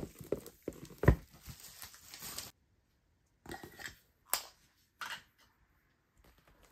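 Bubble wrap and a plastic sleeve crinkling and rustling as they are pulled off a boxed DVD set, with a dull knock on the tabletop about a second in. After a short pause, a few light clicks and taps as small objects are handled on the desk.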